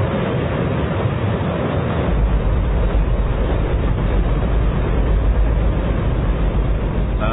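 Hydrogen-oxygen rocket engine firing: a steady, very loud roar, its deep rumble growing stronger about two seconds in. It is so loud that a shouting voice can't be heard over it.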